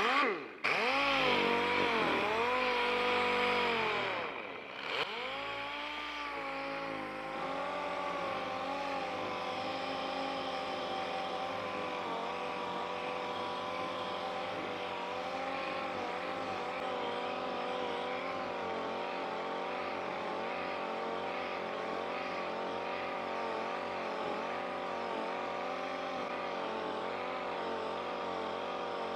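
Air-powered orbital polisher with a foam pad running against a car's front bumper, giving a steady whine whose pitch wobbles up and down. It starts abruptly, dips briefly about four seconds in, then runs on steadily. This is the final polishing stage of a bumper scratch repair, bringing the paint to a smooth gloss.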